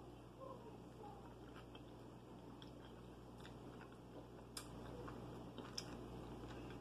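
A person chewing a bite of ham and cheese sandwich: faint, wet mouth sounds with a couple of sharper smacks about four and a half and six seconds in, over a steady low hum.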